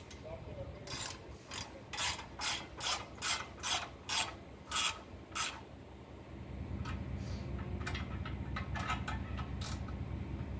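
Ratchet wrench clicking in short back-and-forth strokes, about two to three a second, as it turns bolts in the brake rotor's threaded holes to push the stuck rotor off the hub. After a brief pause near the middle, fainter and quicker strokes follow.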